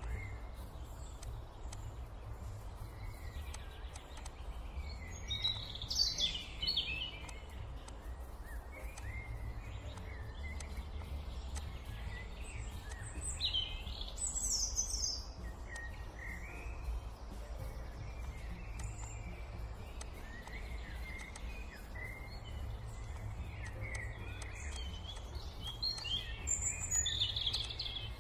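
Birds chirping and calling over a steady low rumble, with brighter flurries of calls about six, fourteen and twenty-seven seconds in.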